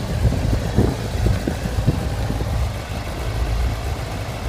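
Honda CBR600RR's inline-four engine idling steadily.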